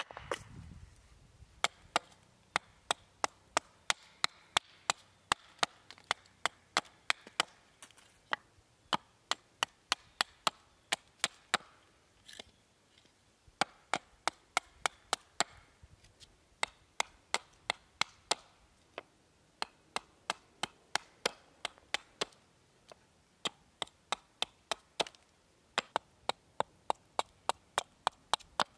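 A hatchet trimming blocks of shortleaf pine: quick, sharp chops at about two a second, in short runs broken by brief pauses.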